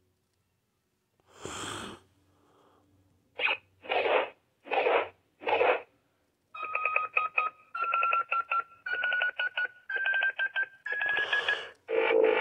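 Toy Power Rangers Cosmic Fury morpher playing electronic sound effects from its small speaker as its button is pressed. There is a short whoosh, then four short blasts, then a pulsing tone that climbs in pitch in about six steps over roughly five seconds.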